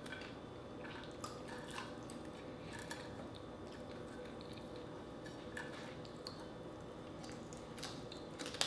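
Faint close-up eating sounds: scattered soft clicks and crunches from chewing dried fish and from fingers picking through the fish and rice. Near the end comes one louder, sharp mouth smack as a mouthful goes in.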